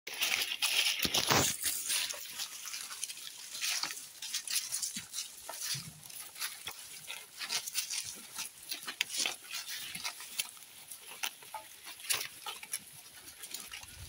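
Goat kids browsing fresh leafy branches: leaves rustling and being tugged and torn off, in a run of short crackles and snaps, loudest about a second in.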